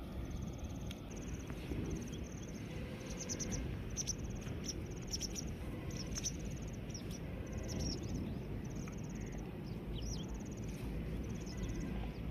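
Crickets chirping in short, evenly pulsed trills that repeat about once a second, with a few brief sharp chirps in the middle, over a steady low rumble of wind.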